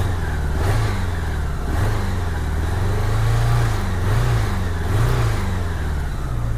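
1987 Honda GL1200 Goldwing flat-four engine running, revved in about five short blips above idle. The engine has a popping while running that the owner, having ruled out spark, compression and plugs, puts down to the carburetors being out of synchronization.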